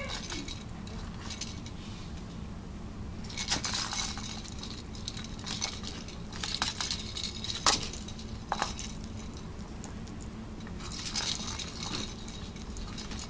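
Plastic ball-track cat toy rattling as a kitten bats the ball around its track. The sound comes as sharp clicks and clattering in three spells: about three seconds in, through the middle, and again near the end, over a steady low hum.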